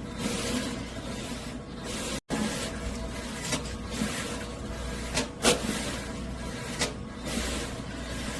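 Electric vegetable cutting machine running: a steady motor hum under a swishing noise that swells and fades about once a second, with several sharp clicks, the loudest about five and a half seconds in.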